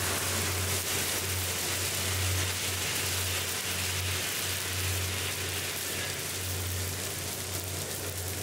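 Freshly roasted coffee beans pouring out of a Probat drum roaster into its cooling tray and being swept round by the stirring arms: a steady dense hiss of many small beans striking metal and each other, over the low steady hum of the roaster's motor. The beans are being dropped at the end of the roast, just after second crack.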